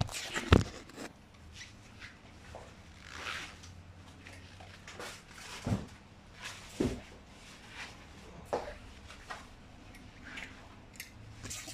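Handling noise: scattered clicks, knocks and rustles as things are moved about, with a sharp click about half a second in.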